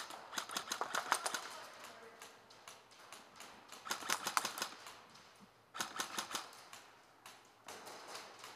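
Airsoft guns firing in rapid bursts of sharp clicks: one burst running through the first second or so, then shorter bursts about four, six and eight seconds in.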